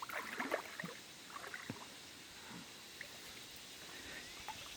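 Faint river water splashing and trickling, with a few short splashes in the first couple of seconds.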